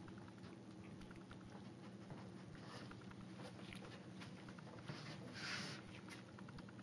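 Faint pattering and light ticking of a dog moving about on a hard floor, with a short soft rush about five and a half seconds in, over a steady low hum.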